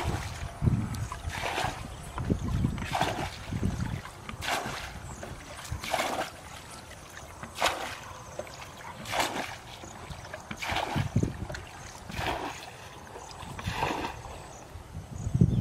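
Water being bailed by hand from a muddy ditch with a bucket: a scoop and splash about every second and a half.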